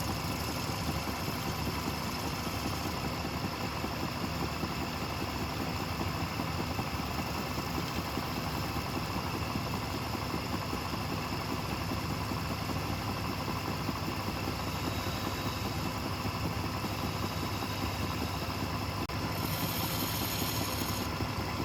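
Wood lathe running steadily with a constant machine hum. A brighter hiss joins about three-quarters of the way through.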